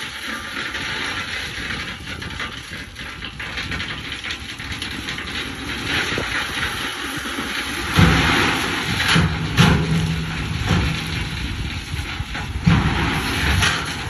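Dump truck tipping a load of crushed rock: gravel sliding and pouring out of the raised bed with a steady hiss while the truck's diesel engine runs. About eight seconds in, the engine note gets louder and a few sharp knocks sound through the pour.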